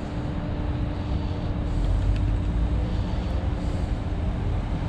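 Steady low outdoor rumble with a faint steady hum, a little louder from about two seconds in.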